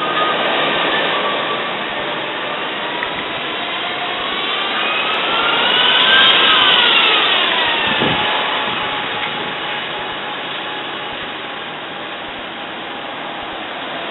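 Road-traffic noise close behind a lorry in city traffic: a steady rush of noise under an engine whine. About a third of the way in the whine rises in pitch over a couple of seconds, falls back, then settles to a steady tone.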